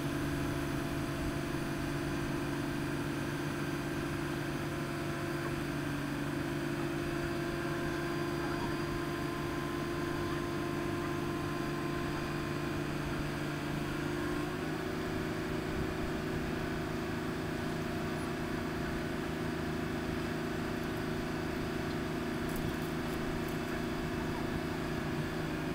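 Crane engine running steadily under load while lifting. Its pitch steps up slightly about a quarter of the way in, and again a little past halfway.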